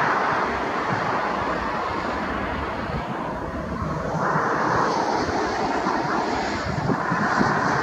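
Jet airliner engines running at an airport, a steady loud rushing noise that swells again about four seconds in.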